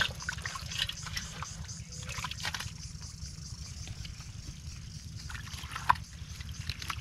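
Shallow muddy water sloshing and trickling as a fishing net is pulled and gathered by hand through mud and water hyacinth, with scattered wet rustles of the net and one sharp knock about six seconds in, over a steady low rumble.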